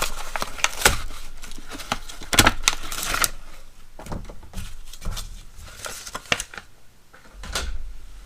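Packaging being torn open and crinkled by hand while the drill straps are unpacked: a dense run of sharp crackles for about the first three seconds, then sparser, quieter rustling and clicks.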